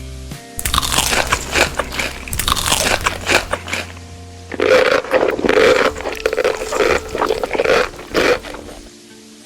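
Close-miked chewing and crunching of food, a dense run of crisp crunches and bites that stops shortly before the end, over quiet background music.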